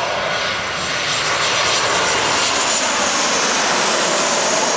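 Boeing 737-700's CFM56-7B turbofan engines on final approach, passing low overhead. The jet noise is loud and steady, building over the first second as the aircraft closes in.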